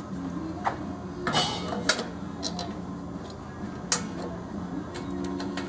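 Light metallic clicks and scrapes as a sheet-metal interconnector tube is worked into the port between two combustion cans of an Orenda 14 turbojet, the sharpest click about four seconds in, over a steady low hum.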